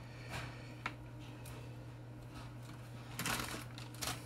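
Packaging and parts being handled while unboxing: soft rustling with a sharp click about a second in and a louder burst of rustling near the end.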